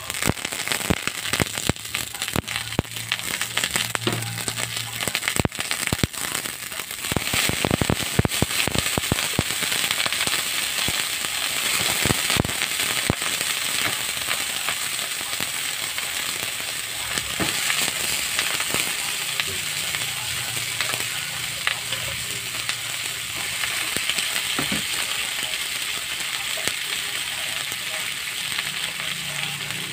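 Whole crabs frying in hot oil in a pan with garlic and onion: sharp crackling and popping for about the first half as they go into the oil, settling into a steady sizzle.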